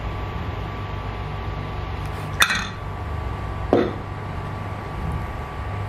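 Silicone spatula stirring minced shallots in a non-stick frying pan, with two short knocks of the spatula against the pan about two and a half and four seconds in. Under it are a steady low hum and a faint steady whine.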